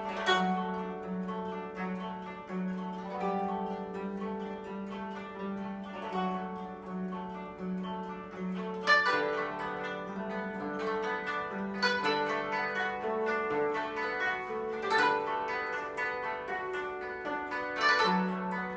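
Koto ensemble playing: a low note plucked over and over pulses under a plucked melody. Strong plucked chords ring out about every three seconds in the second half.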